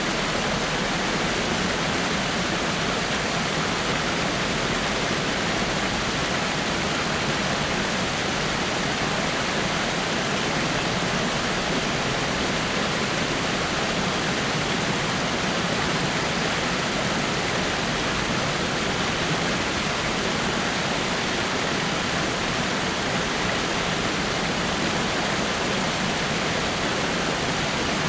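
Water falling over rocks in a small waterfall: a steady, even rushing and splashing with no change.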